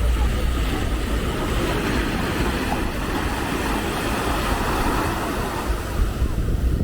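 Steady wash of surf breaking on a sand beach, with wind rumbling on the microphone.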